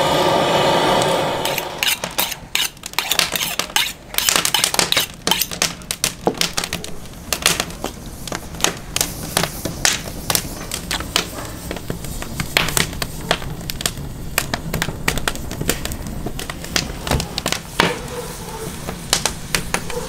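A gas torch hisses steadily and cuts off about a second and a half in. Then a kitchen knife cuts raw nutria meat and organs on a wooden chopping board, with many sharp clicks and taps.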